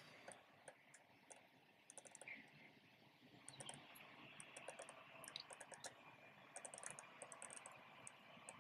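Near silence with faint, irregular small clicks and taps of fingers handling the stainless-steel pump body and pressing an O-ring into its seat, more of them in the second half.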